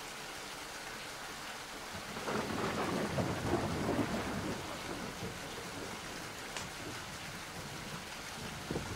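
Steady rain, with a roll of thunder that swells about two seconds in and dies away by about five seconds.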